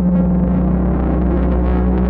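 Electronic sound sculpture's synthesizer circuit playing through its Dayton ND65-8 speakers: a steady low drone with a grainy, noisy texture shifting above it.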